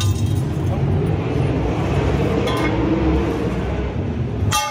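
Steady low rumble of sprint car engines running on the track. Just before the end, a sharp ringing clank of a steel tool striking metal.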